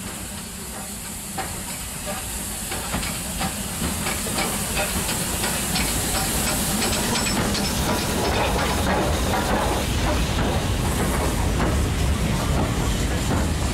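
LMS Black Five steam locomotive 45379 running into the platform with a steady hiss of steam, then its coaches rolling past. The rumble of the wheels grows louder as the train draws alongside.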